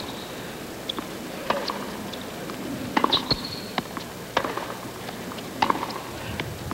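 Tennis rally on a hard court: sharp racket-on-ball hits about every second and a half, with a few short high squeaks about three seconds in.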